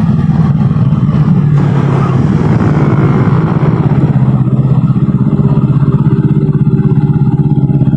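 Kawasaki ER-6n parallel-twin engine running while the motorcycle is ridden, its pitch holding mostly steady, with rushing road and wind noise on the microphone.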